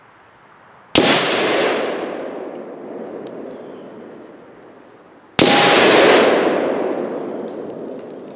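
Two 5.56 rifle shots striking a half-inch steel plate, about four and a half seconds apart. Each is a sharp crack with a long echo fading away over a few seconds.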